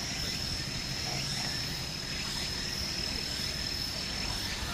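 Steady high-pitched insect drone, unbroken, over a low background rumble.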